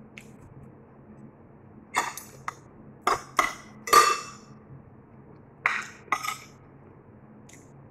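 Metal spoon clinking and scraping against a ceramic plate while scooping rice: a cluster of sharp clinks about two seconds in, the loudest with a brief ring, then two more a couple of seconds later.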